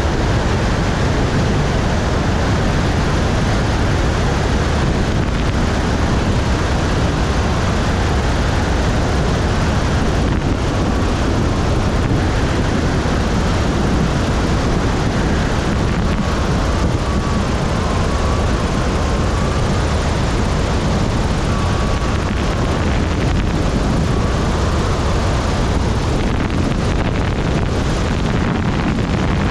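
Cessna 172 in flight: its engine and propeller make a steady drone, mixed with rushing air noise. A faint wavering tone comes and goes through the middle.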